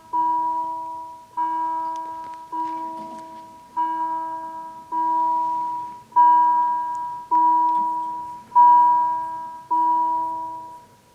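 Level crossing warning bell striking about once every 1.2 seconds, each strike ringing out and fading before the next, while the barriers come down as a train approaches. The ringing stops near the end, once the barriers are fully lowered.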